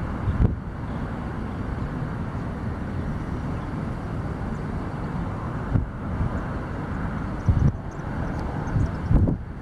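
Boeing 737-800's jet engines running at taxi power, a steady distant rush, with wind buffeting the microphone in gusty low thumps.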